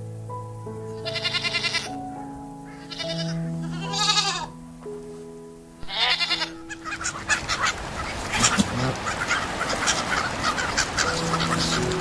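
Goats bleating four times in the first half, each a wavering call, over background music. About halfway through, a flock of seagulls takes over, calling in many short cries over a steady rushing noise, with music notes returning near the end.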